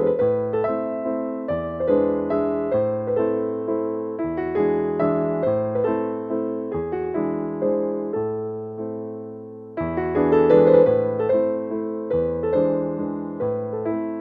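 Background music: piano or electric piano playing a gentle melody over steady chords, with a new phrase starting about ten seconds in.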